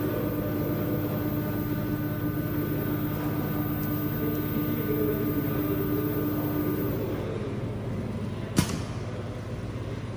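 Cable rewinding machine running with a steady motor whine that stops about seven seconds in, then a single sharp click a little over a second later, over a low steady hum.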